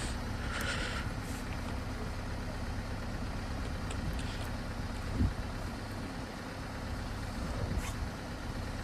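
A vehicle engine idling steadily, with a short thump about five seconds in.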